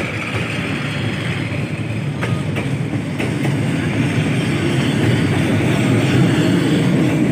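Tail end of a passenger train rolling past at close range: a steady low rumble of the coaches and a boxcar, with the wheels clicking over rail joints a few times about two to three seconds in. The rumble grows louder in the second half.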